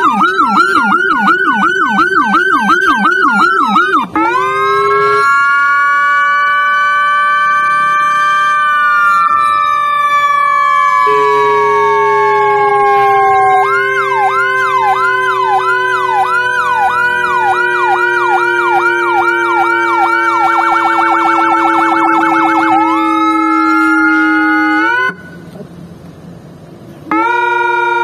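Whelen 295SDA1 dual-tone electronic siren sounding through its SA314 and Lopro speakers, often playing two tones at once. It cycles from a fast yelp to slow up-and-down wails, then a yelp over a steady falling tone with a brief faster warble. It stops for about two seconds near the end, then starts again on a steady tone.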